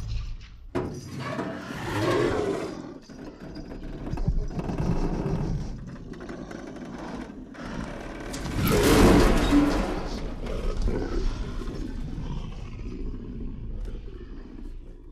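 Low growls and heavy breaths of the Indominus rex, a giant film dinosaur, at very close range, coming in several swells. The loudest swell is about nine seconds in, and the sound dies away near the end.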